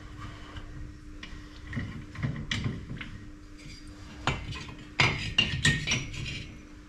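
Metal clinks and knocks as the clamp cap is lifted off a finned vintage BSA motorcycle cylinder barrel and the barrel is handled out of a honing machine fixture, with a cluster of louder knocks from about four to six seconds in. A steady low hum runs underneath.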